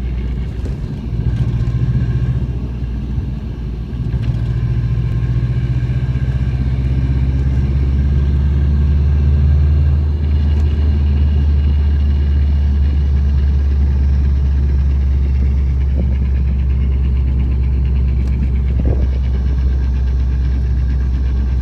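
Subaru Impreza's flat-four engine running, a steady low drone with a faint whine above it, getting louder a couple of times early on and then holding steady. The owner finds the noise strange and does not know its cause.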